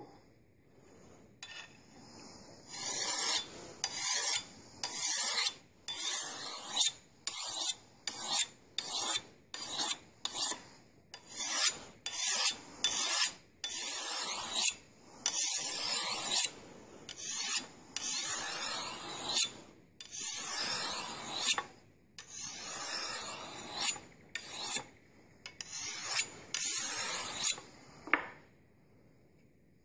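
Pocket sharpening stone drawn along the edge of a Tramontina Bolo machete in about two dozen scraping strokes, some short and quick, some longer, roughly one a second, refining away the wire edge left by filing.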